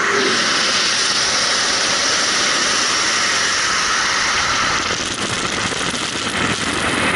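Loud, steady rush of wind and propeller-engine noise through the open door of a jump plane in flight, setting in suddenly at the start as the door opens.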